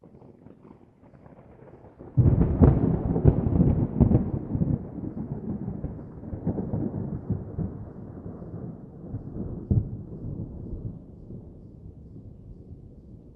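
Distant thunder: a faint low rumble, then a sudden loud clap about two seconds in. The clap breaks into several cracks and rolls on as a long rumble that slowly fades, with one more crack near the end.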